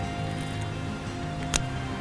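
Background music with steady held tones, and a single sharp click about one and a half seconds in.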